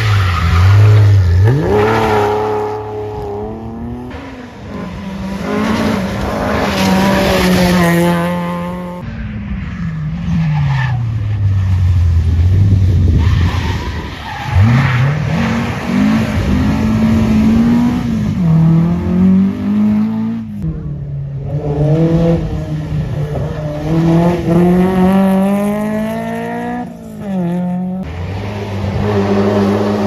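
Rally car engines, a BMW E30 among them, revving hard through corners. The revs climb and drop again and again with gear changes and lifts off the throttle, in a run of short clips that cut abruptly from one car to the next.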